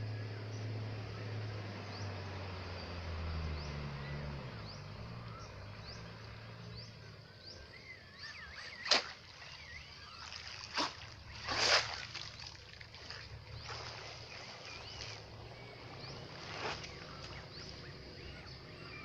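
Outdoor ambience with birds calling and chirping throughout. A low hum rises slightly and fades out in the first few seconds. A few sharp knocks or splashes come around the middle, the loudest among them near the halfway point.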